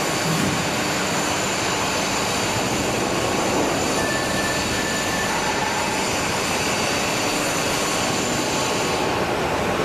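Steady mechanical drone of a tandem hydraulic press brake running as its upper beam rises, with a brief faint whine about four seconds in.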